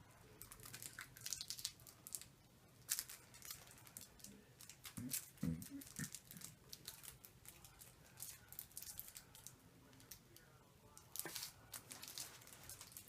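A candy wrapper being handled and torn open, crinkling in irregular small crackles.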